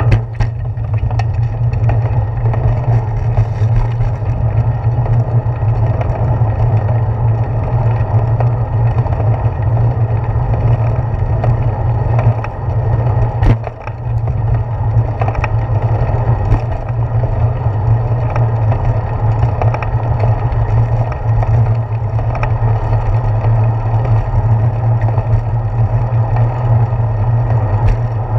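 Bicycle riding noise picked up by a handlebar-mounted GoPro: a steady low rumble of wind and tyres rolling on pavement, with scattered knocks from bumps and a sharper knock about halfway through.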